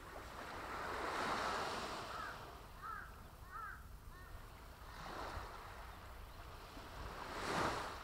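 Small sea waves breaking and washing up over sand and rocks at the water's edge, swelling three times: about a second in, around five seconds, and loudest near the end. A few short high chirps sound in between.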